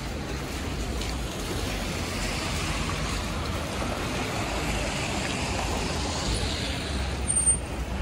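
Street traffic with a vehicle passing, its noise swelling and fading through the middle, and a brief high-pitched squeal near the end.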